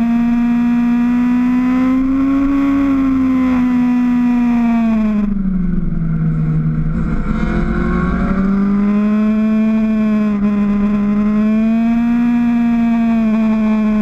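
Motorcycle engine heard from on board, running at high revs with a steady tone. Its pitch dips for a couple of seconds about five seconds in, then climbs back as the throttle opens again.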